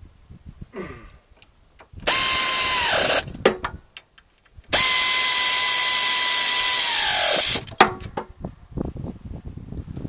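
Air ratchet running bolts in, in two runs: a short one and then a longer one of about three seconds. Each is a steady whine with air hiss that drops in pitch as the tool stops, with small clicks of tools and parts in between.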